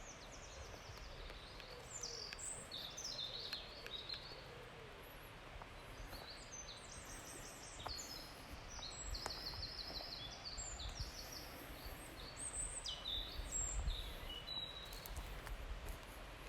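Small forest songbirds singing: a string of high chirps and quick trilled phrases over a faint steady background, with a few soft low thumps.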